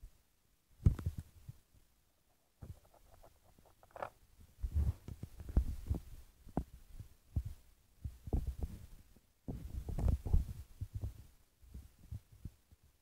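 Irregular low thumps and rubbing, with a few sharper clicks, from a phone being handled and moved around.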